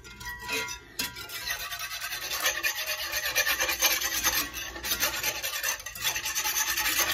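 Steel wire whisk scraping rapidly and steadily against the bottom of a cast-iron skillet as thin gravy is whisked to work in xanthan gum without lumps.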